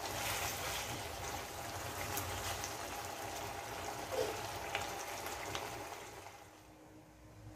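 Pork humba's thick soy-vinegar sauce bubbling and sizzling around pork belly pieces in a pot, with scattered small pops and clicks; it fades out about six seconds in.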